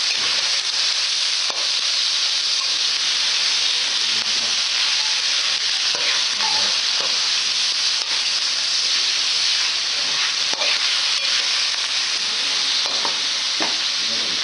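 Chicken pieces frying in a metal wok with a steady sizzle, while a metal spatula turns them, scraping and clinking against the pan now and then.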